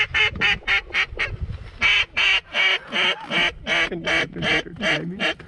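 Duck call blown in hen-mallard quacks: about six short, quick quacks, then a steady run of about a dozen longer, louder quacks at roughly three a second.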